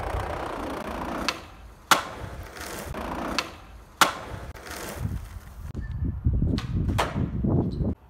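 Skateboard (Baker deck, 52 mm Ricta wheels) rolling on concrete with a low rumble, broken by sharp clacks of the board, the two loudest about two and four seconds in, as the skater pops and lands on the stairs. More wheel rumble and a couple of clicks near the end.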